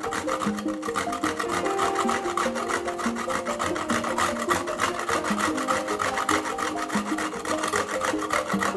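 Raw chicken breast grated on a stainless-steel box grater: fast, even rasping strokes of flesh scraping over the metal holes. Background music plays underneath.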